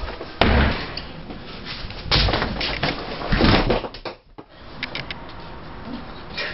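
Three loud rustling thumps from a scuffle, a second or two apart, followed near the end by a few faint clicks.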